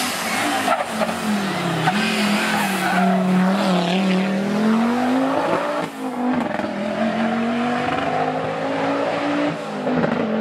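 Audi quattro rally car's turbocharged five-cylinder engine driven hard past the camera. Its revs drop as it brakes into the bend, then climb again as it accelerates away up the road.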